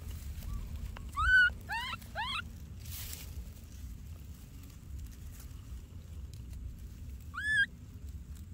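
Baby macaque crying: three short rising calls in quick succession about a second in, then one more near the end, over a low steady rumble.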